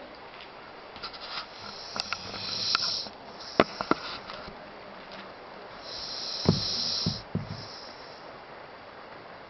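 Siberian husky snoring: two long, hissing breaths, one a couple of seconds in and one past the middle, with a few short clicks around the first and low, short grunts inside the second.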